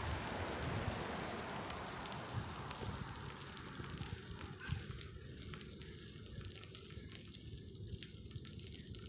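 Riding noise from a bicycle on a rough asphalt path: a rushing noise that thins out over the first few seconds, with scattered crackling clicks and rattles from the bike and camera mount.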